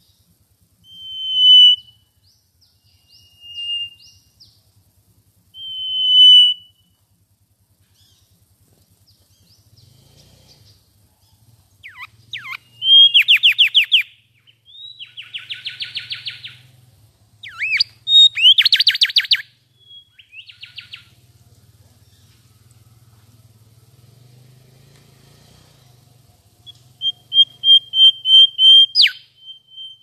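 Mangrove whistler singing: three clear whistled notes at first, then loud rapid rattling trills in the middle, and near the end a fast run of repeated notes ending in a sharp downward sweep.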